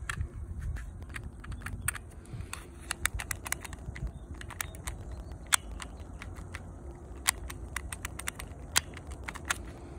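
Small, sharp, irregular clicks from a Dong San Browning Baby airsoft pistol being handled, its lever and parts clicking under the fingers, a few clicks louder than the rest. Low wind rumble on the microphone underneath.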